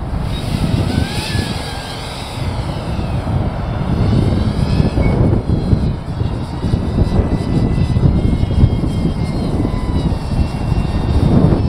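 Motor and propeller whine of a 3D-printed Ligeti Stratos RC model plane flying overhead. Its pitch falls as it passes in the first few seconds, then holds steadier. Wind rumbles on the microphone underneath.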